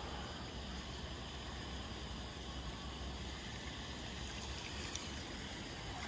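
Steady trickle of the last puddle water running away into a drain, with a faint low rumble underneath.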